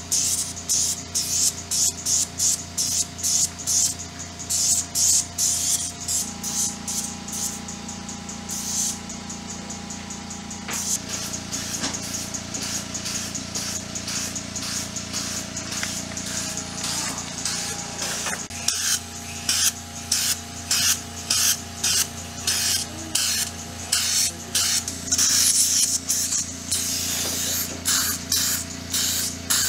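Facial pore-suction wand sucking the gunk out of the pores. It makes rapid hissing pulses, about two or three a second, that keep on evenly.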